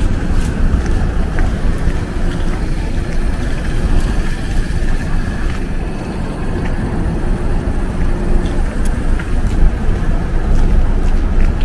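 Steady low rumble of downtown street traffic, with a few faint clicks over it.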